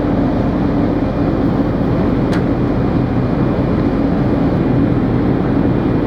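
Steady low rumble and hum of the Eastern Dream ferry's engines heard on board, unchanging throughout, with one short click about two seconds in.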